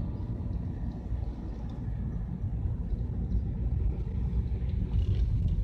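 Low, steady rumble of a van's engine and road noise, heard from inside the cab while driving.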